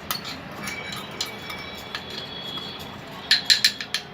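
A metal spoon clinking and scraping against a cooking pan as ginger-sugar paste is stirred in ghee, with a quick run of sharp taps about three seconds in.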